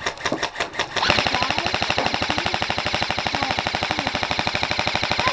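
Airsoft gun firing: a few quick single shots, then from about a second in a long, even full-auto burst at roughly twenty shots a second.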